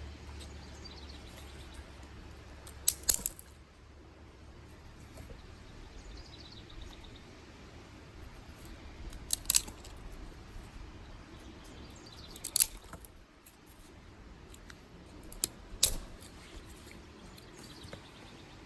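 Dry sticks being snapped by hand, four times, each break a quick cluster of two or three sharp cracks. Faint bird chirps are heard between the breaks.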